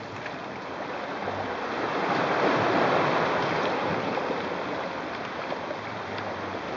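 Sea waves washing against shoreline rocks: a rush of water that swells about two seconds in and slowly eases off.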